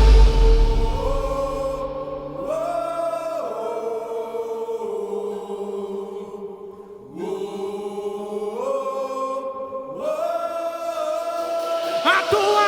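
Soft live worship music: sustained, choir-like chords that change with smooth gliding shifts. The loud full band fades away in the first second, and the music builds again near the end.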